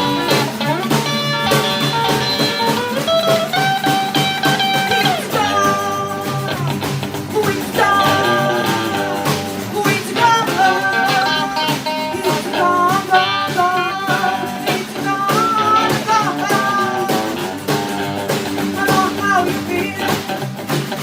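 Live band music in a blues-rock style: a guitar plays a melodic line with bent, held notes over bass and drums.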